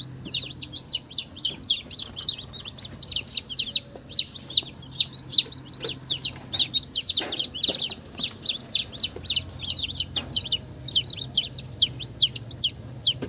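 Newly hatched chicks peeping continuously: a dense stream of short, high, falling cheeps, several a second, with a faint low hum underneath.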